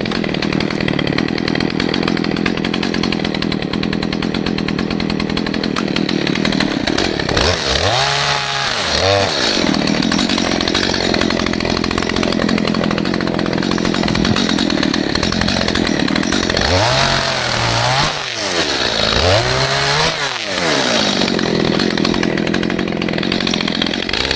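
Stihl MS211 two-stroke chainsaw cutting at high revs through small trees. Its engine pitch drops and climbs back several times as the throttle is eased between cuts: once about a third of the way in, and a few more times past the middle. The chain seems quite dull but still cuts.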